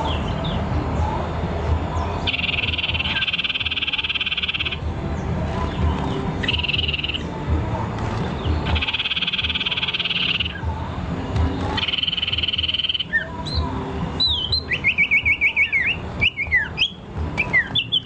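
Songbird singing: four buzzy trills lasting one to two seconds each, then a run of quick, sharp whistled notes in the last few seconds, over a steady low hum.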